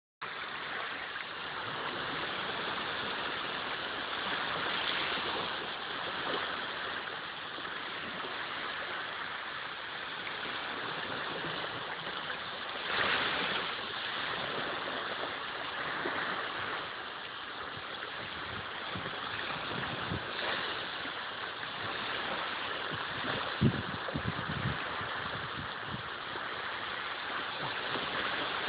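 Small waves breaking and washing onto a beach: a steady rush that swells every few seconds. Near the end come a few brief low thumps.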